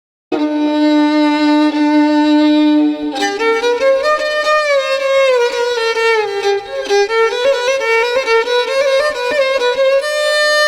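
Solo violin music: one long held note, then a slow melody that rises and falls.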